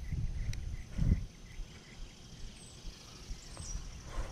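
Low rumbling bumps of wind and handling on the microphone, a sharp click about half a second in and a louder bump at about one second. Faint high bird chirps come in during the second half.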